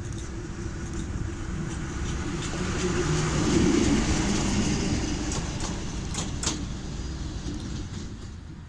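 PKP SM42 diesel-electric shunting locomotive passing close by, its diesel engine running with a steady hum that grows louder to a peak about three to four seconds in, then fades as it moves away. A couple of sharp clicks come a little after six seconds.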